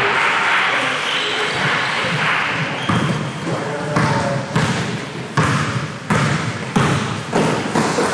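Basketball being dribbled on a court, with a regular bounce roughly every two-thirds of a second starting about three seconds in.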